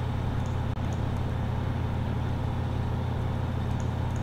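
Steady low hum under an even hiss of background noise, with a few faint clicks.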